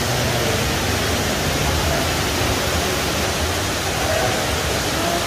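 Steady background din of a busy casino interior: an even wash of noise with faint, indistinct voices in it.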